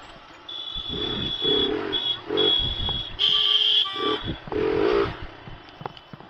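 Vehicle horns honking in dense street traffic: a long high-pitched beep, then shorter beeps, and a louder, harsher horn about three seconds in. Motorcycle engine and traffic noise run underneath.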